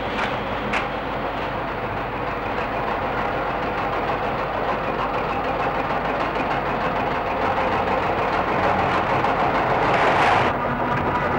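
Train noise at a railway platform: a steady dense noise with a couple of clicks near the start, growing slowly louder, with a brief louder hiss just before the end.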